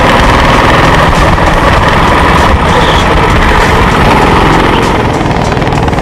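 Go-kart engine running at speed, heard loud and close from a camera mounted on the kart, mixed with the rush of air over the microphone.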